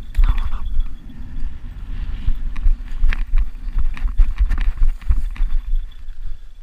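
Quick, uneven footsteps crunching through snow, with strong wind buffeting the microphone as a steady low rumble.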